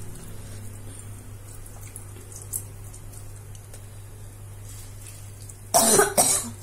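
Lemon squeezed by hand over a pot of rice and vegetables, its juice dripping faintly into the cooking water over a steady low hum; a loud, brief noise breaks in near the end.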